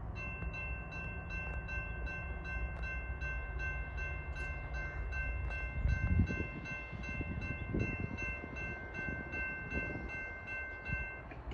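Locomotive horn of an approaching train sounding one long chord of several notes, cutting off abruptly near the end, over a low rumble, with a faint rapid ticking about three times a second alongside.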